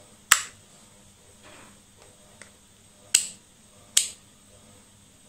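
Rotary range switch of a Sanwa CD800a digital multimeter clicking into its detent positions as it is turned by hand: three sharp clicks, one near the start and two close together near the end, with a faint tick between them.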